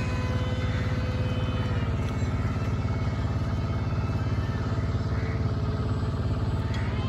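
A steady motor drone with a strong low rumble and several held tones, one sagging slightly in pitch about two seconds in and another rising near the end.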